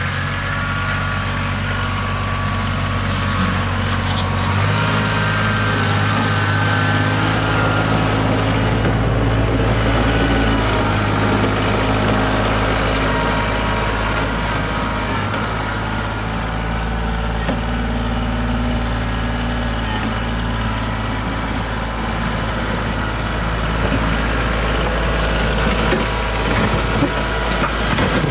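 Kioti CK4010 compact tractor's diesel engine running steadily as the tractor moves snow with its front loader. The engine note shifts about five seconds in.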